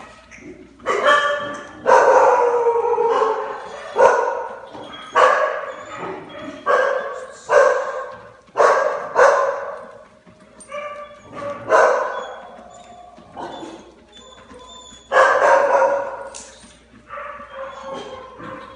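Formosan mountain dog puppies yelping and crying, about a dozen pitched calls at irregular intervals; some are short and sharp, others drawn out for a second or two.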